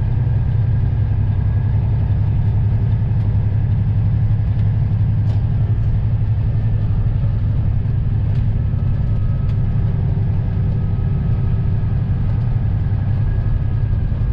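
Semi truck's diesel engine running steadily, a deep, even drone heard from inside the cab.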